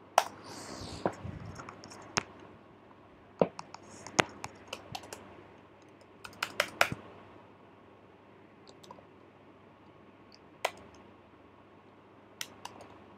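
Computer keyboard typing: irregular keystroke clicks in a few short runs with pauses between them.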